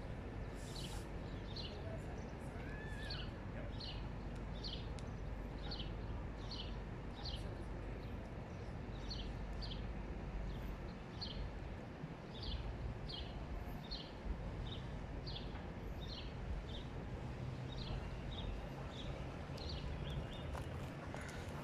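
A small bird calling a short, high chip over and over, roughly two a second, with no pause, over a steady low rumble of outdoor background noise.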